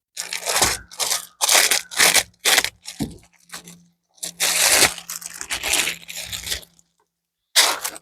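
Plastic packaging of a diamond painting kit crinkling and rustling as it is handled, in a series of short bursts with brief pauses.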